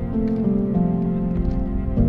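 Background music: held notes that change in steps over a low pulsing beat.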